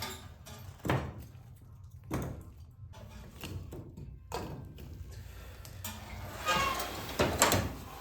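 A series of separate knocks and thuds, spaced a second or two apart, with a quicker cluster near the end; no power tool is running.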